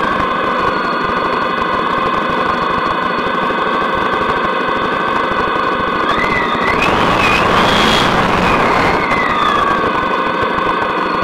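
Motorcycle engine running under way, with wind and road noise. Its pitch climbs about six seconds in as the bike revs up, then falls away again a few seconds later.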